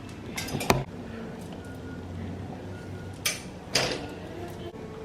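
A few short clicks and knocks of small objects being handled: a quick cluster under a second in, then two louder knocks about half a second apart near three and a half seconds in. A faint steady hum runs underneath.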